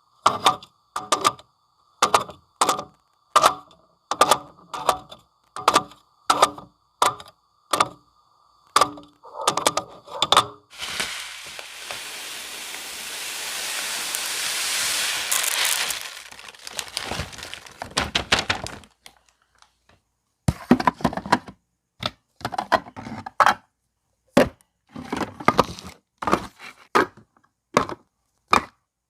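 Groceries and containers being set into a refrigerator one after another: a steady run of hard clacks and knocks about two a second. About eleven seconds in comes a few seconds of steady hissing noise that grows louder, then the knocking starts again, more irregular.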